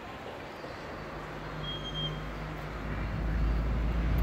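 Outdoor background noise with a low rumble that builds from about a second in and is loudest near the end. A brief high tone sounds about two seconds in.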